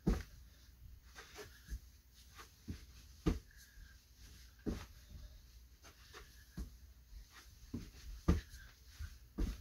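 Dull thuds of a person doing burpees on a carpeted floor, hands and feet landing as he drops down and jumps back up, the loudest every one to four seconds, with hard breathing between them.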